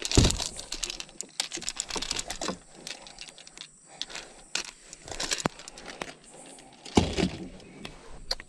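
Fishing pliers, lure hooks and metal hardware clicking and rattling as a lure is worked free and handled, with a louder knock against the plastic boat hull about seven seconds in.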